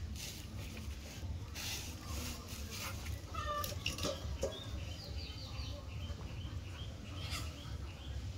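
A cat chewing food, with a few short animal calls between about three and five seconds in, over a low steady rumble.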